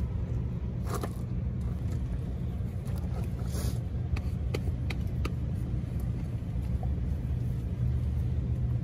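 Steady low engine drone from a machine running nearby, with a few light clicks and taps of hand work on a spin-on oil filter and a plastic strap filter wrench being fitted to it.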